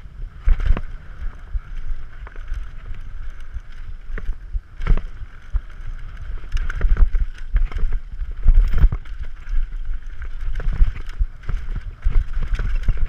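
Yeti SB6c mountain bike ridden fast down a dirt jump trail, heard from a camera on the bike or rider: steady wind rumble on the microphone and tyre noise over the dirt. Many sharp knocks and rattles come from the bike hitting bumps and landing jumps, the loudest about five, seven and nine seconds in.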